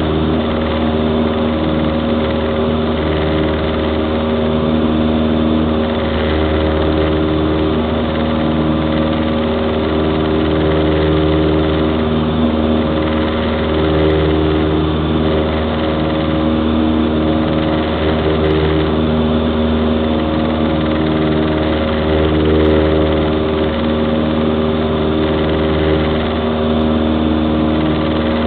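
Cessna 172's piston engine and propeller running steadily at takeoff power through the takeoff roll, liftoff and initial climb, heard from inside the cabin as a loud, even drone with a slow beat in it.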